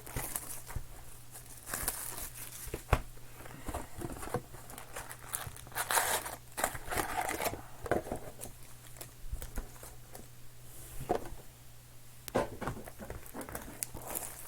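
Plastic card-pack wrappers crinkling and tearing as Panini Contenders football card packs are ripped open, with irregular rustles and clicks of cards being handled. A steady low hum runs underneath.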